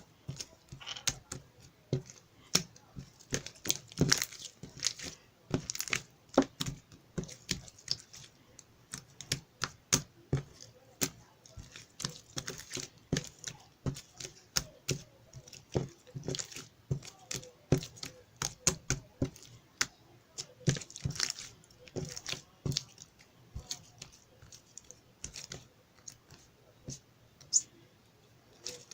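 Close-up handling of crinkly paper or plastic: irregular crinkling and rustling broken by many sharp clicks and taps.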